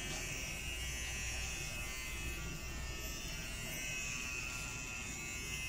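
Blueidea cordless rechargeable pet trimmer running with a steady electric buzz while clipping a dog's coat.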